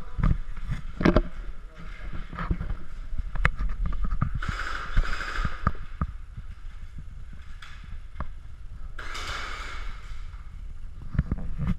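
Airsoft gunfire in a bare concrete room: scattered sharp pops and knocks, with two longer rattling bursts, one about four seconds in and one about nine seconds in, over a steady low rumble.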